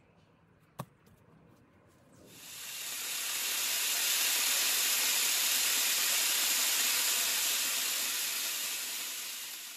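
Angle grinder fitted with a chainsaw bar and chain, cutting through a log. After a single click, a steady hissing cutting noise builds up about two seconds in and holds.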